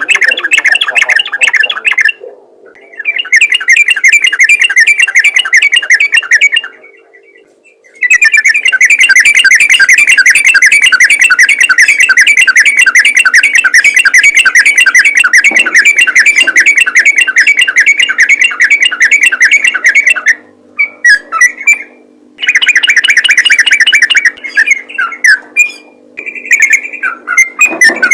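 Yellow-vented bulbul (trucukan) calling in long runs of fast, repeated chattering notes, broken by short pauses. This is the vigorous 'gacor' call used to draw in other bulbuls. A faint steady hum runs underneath.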